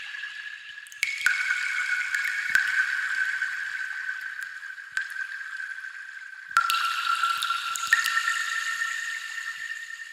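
Water sound effect: continuous trickling, gurgling water with a ringing tone that jumps to a new pitch, freshly loud, a little over a second in, again about six and a half seconds in and once more near eight seconds, fading slowly in between.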